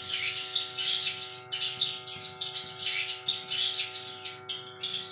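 Swiftlets chirping in repeated high twittering bursts, with a steady hum of several pitches underneath.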